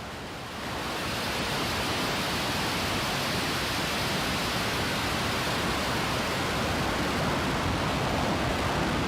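Starship prototype's Raptor rocket engines firing just after liftoff, a steady, dense roar that swells about a second in and then holds.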